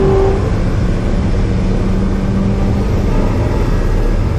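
SSC Tuatara's twin-turbo 5.9-litre V8 heard from inside the cabin at speed: a loud, steady low drone with a hum that holds one pitch through most of it.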